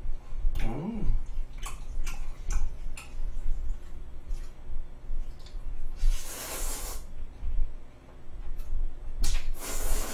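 A man slurping spaghetti noodles into his mouth, two long airy sucking noises, one about six seconds in and one near the end, between soft eating clicks and a brief hummed "mm" about a second in.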